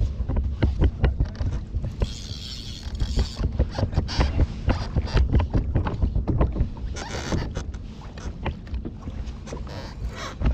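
Repeated knocks and rubbing of fishing rods and gear against a plastic sit-on-top kayak, carried through the hull to the kayak-mounted camera, over a low rumble of wind on the microphone. Brief hissing comes in about two seconds in and again around seven seconds in.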